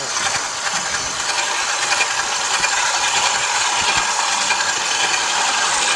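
KitchenAid stand mixer running its metal grinder attachment with the coarse blade, mincing partly frozen beef pushed in through the hopper. The motor runs steadily.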